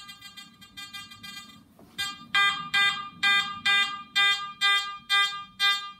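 Garrett AT Max metal detector with an NEL Tornado coil beeping at a coin waved in front of the coil, a repeated buzzy tone a little over twice a second. The beeps are faint at first and grow loud about two seconds in as the detector picks up the coin.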